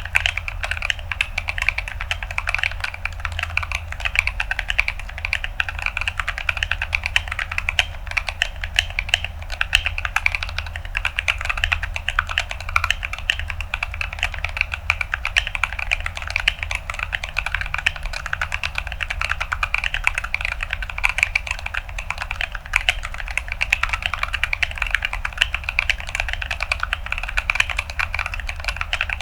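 Continuous fast typing on an Atlantis AK81ve mechanical keyboard with Gazzew Boba U4T tactile switches in an acrylic plate and Akko ASA-profile keycaps: a dense, unbroken stream of crunchy key clicks.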